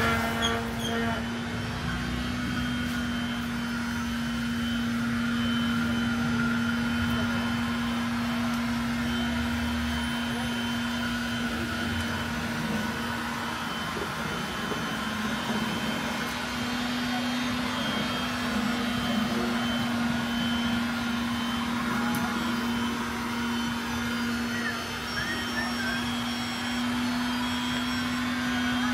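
A steady machine-like hum holding one low pitch, over a faint background of indistinct voices and general market noise.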